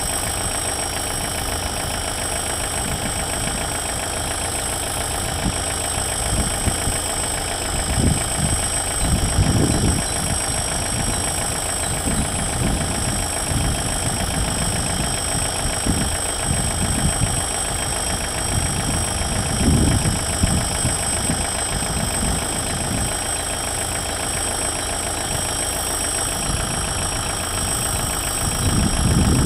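Diesel engine of a TEM-TMH shunting locomotive running steadily as it slowly approaches hauling freight hopper wagons, with irregular low rumbling swells every few seconds.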